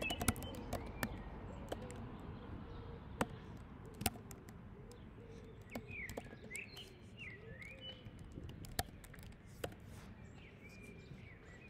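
Birds chirping in the background, with short repeated chirps clearest about six to seven seconds in, over a low steady hum. A few scattered sharp clicks are also heard.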